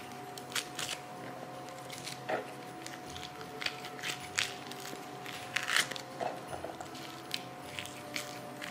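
Orange peel being pulled off the fruit by hand, the scored rind tearing away in short, irregular crackles.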